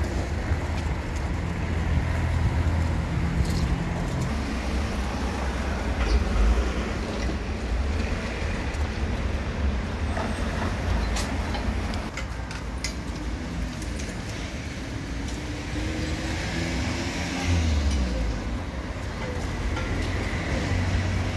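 Street traffic: cars driving past on the road around a square, a steady low engine and tyre rumble, with one engine rising in pitch about three-quarters of the way through.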